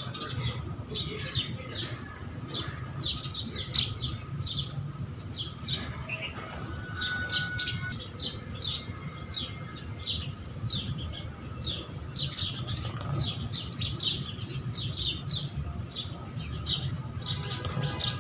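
A flock of house sparrows chirping, with many short, rapid cheeps overlapping throughout. A low steady hum runs underneath.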